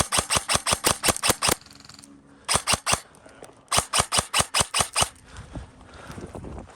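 Airsoft gun firing in three quick strings of sharp shots, about six a second: roughly ten shots, a short pause, three more, then about eight more, stopping about five seconds in.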